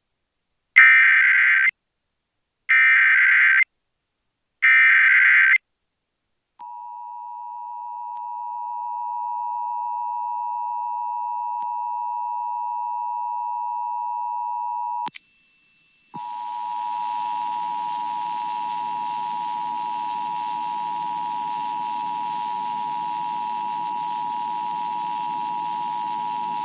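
Emergency Alert System test signal: three roughly one-second bursts of SAME digital header data, then the EAS two-tone attention signal fading in and held for about eight seconds. It cuts off with a click, and after about a second the two-tone signal resumes over a background hiss for another ten seconds.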